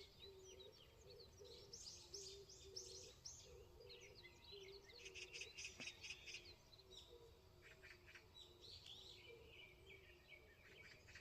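Several wild birds chirping and singing together in a rural dawn chorus, with quick trills and short high calls overlapping throughout. Underneath is a faint low note that repeats in short pulses.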